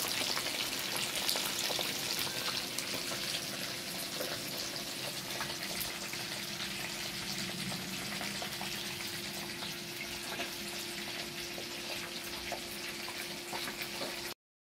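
Fish deep-frying in hot oil in a pan: a steady sizzle full of small crackles and pops, with a faint steady hum underneath. It cuts off abruptly near the end.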